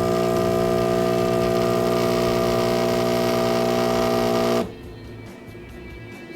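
Philips 3200 LatteGo espresso machine's pump humming steadily as it pulls a single espresso shot, then cutting off abruptly about four and a half seconds in as the shot finishes. Faint background music remains after it stops.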